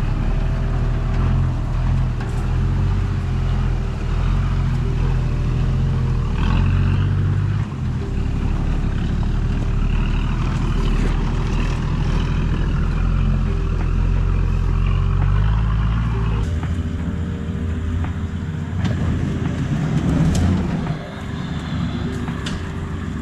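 Toyota 70 series Land Cruiser engine running under load off-road, its note shifting about eight seconds in and again about sixteen seconds in.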